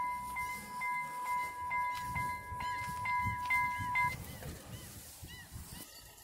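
Level crossing warning bell ringing: a steady, rhythmically repeating electronic chime that cuts off about four seconds in. Low rumbling continues under and after it.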